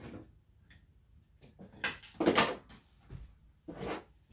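Several short bursts of handling noise, objects being moved and knocked about, the loudest about two seconds in.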